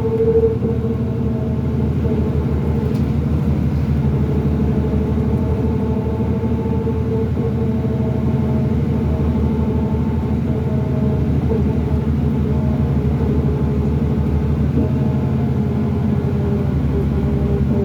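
2005 New Flyer D40LF bus heard from inside, its Cummins ISL diesel running steadily under way with a dense low rumble. Over it runs a steady whine that drops slightly in pitch near the end, the weird axle noise this bus is known for.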